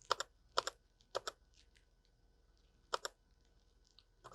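Keys on a Womier WK61 60% mechanical keyboard with Otemu red linear switches being pressed one at a time. There are five separate keystrokes, each a close pair of clicks, with a pause in the middle.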